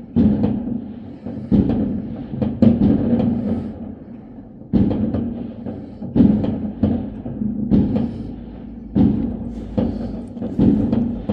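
Fireworks going off: a string of irregularly spaced booms, one or two a second, each dying away over about a second.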